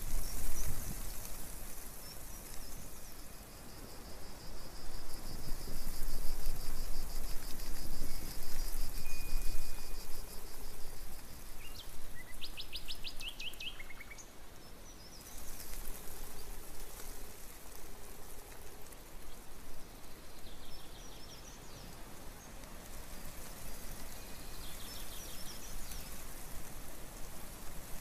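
Woodland birds calling over a steady outdoor hiss with an uneven low rumble: a long high, rapid trill for the first several seconds, a quick burst of high pulses about twelve seconds in, then a few short chirps.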